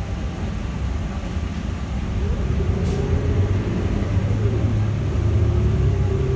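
City bus powered by a Cummins L9N natural-gas engine, heard from inside the passenger cabin, pulling away: a steady low rumble with a whine that rises in pitch from about two seconds in, getting louder toward the end as the bus accelerates.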